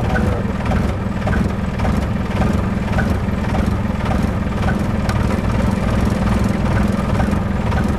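Vehicle engine idling steadily, a continuous low hum.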